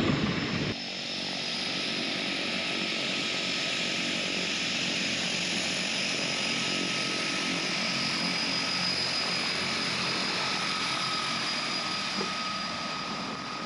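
Twin-engine turboprop airplane taxiing, its engines running with a steady rushing roar and a high, even whine. A louder, different sound fills the first second before this takes over.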